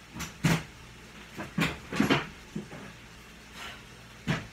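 A string of sharp knocks and clunks from kitchen cupboards: doors and items on the shelves being handled as a jar of spaghetti sauce is fetched. There are about eight knocks at uneven intervals, the loudest about half a second in, around two seconds in and near the end.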